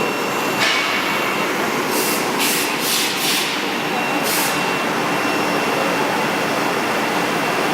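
CNC router running steadily: a constant mechanical whine with a high steady tone, broken by several short bursts of hiss.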